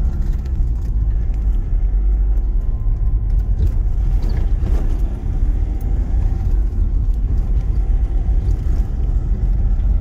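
Car driving on an unpaved dirt road, heard from inside the cabin: a steady low rumble of engine and tyres, with a few faint clicks and rattles.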